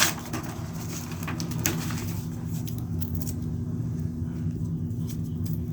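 Scattered small clicks and crackles from craft materials being handled, mostly in the first couple of seconds, over a steady low hum.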